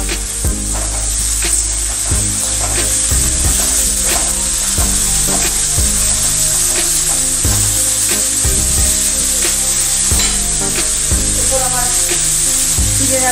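Chopped green beans and carrots sizzling steadily in hot oil and ghee in an aluminium kadai, while a spatula stirs them, scraping and knocking against the pan about once a second.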